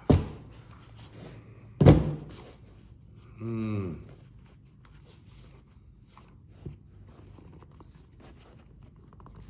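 Two sharp thunks on a wooden workbench about two seconds apart, as a cordless drill and a canvas-and-leather tool pouch are set down. They are followed by a short hum of the voice and then faint rustling and small clicks as the pouch is handled.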